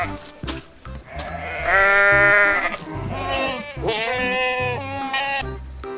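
Farm livestock bleating: one long, loud bleat about one and a half seconds in, then a run of shorter, wavering bleats, over background music.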